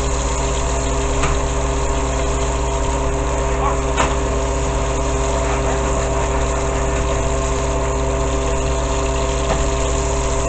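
A steady motor-like hum over an even hiss, unchanging throughout, with one faint click about four seconds in.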